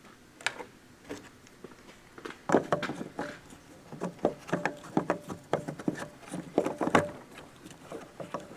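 Irregular clicks, taps and rubbing of plastic and rubber parts being handled and pressed together, as an HID bulb and its rubber seal are fitted into a plastic headlight housing. The clicks come thickest in the middle of the stretch and thin out toward the end.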